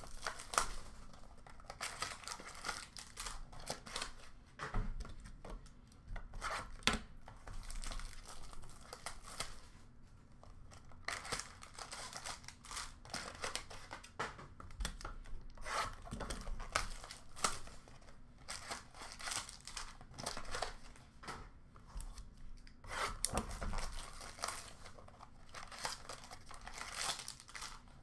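Wrapping on sealed trading-card packs being torn open and crinkled by hand, in an irregular run of short rips and rustles.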